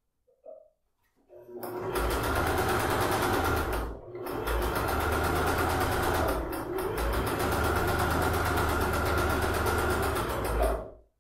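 Electric domestic sewing machine stitching a seam through cotton fabric, the needle running fast and steady. It starts about a second and a half in, slows to a brief pause around four seconds, then runs on until it stops shortly before the end.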